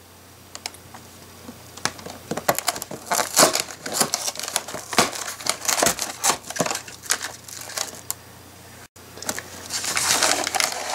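Cardboard LEGO set box being opened by hand: a run of sharp crackles and tearing as the end flap and seal are pulled open, then a denser rustle near the end as the contents are drawn out.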